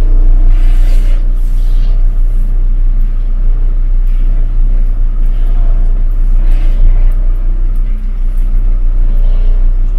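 MAN expedition truck's diesel engine running as the truck rolls slowly along, heard from inside the cab as a loud, steady deep rumble.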